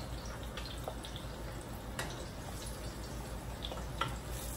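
Tortillas frying in shallow oil in a stainless steel pan: a steady sizzle with scattered small pops. There is a sharper click about four seconds in as metal tongs go into the pan.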